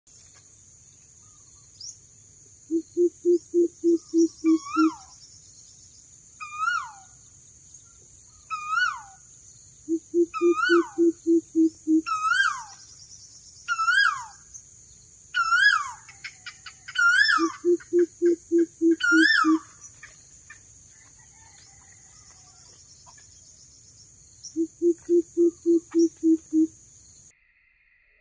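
Greater coucal calling: four bouts of deep, evenly spaced hoots, about four or five a second, each bout lasting about two seconds. Between the bouts another bird repeats a higher call with a downward-sweeping note about every two seconds. A steady high-pitched buzz runs underneath and cuts off suddenly near the end.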